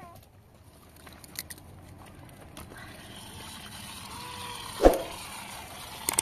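A few light clicks, then one loud, sharp knock just before the end, over a faint steady hiss.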